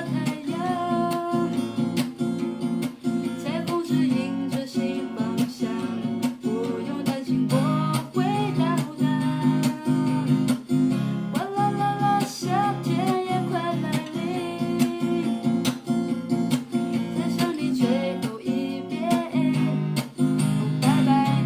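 A song: steadily strummed acoustic guitar accompanying a sung melody.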